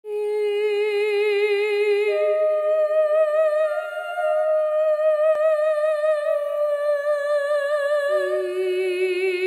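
Slow wordless vocal music: long held, hummed or sung notes with a wavering vibrato, stepping up in pitch about two seconds in and back down near the end, with two notes sounding together at times. A single faint click about five seconds in.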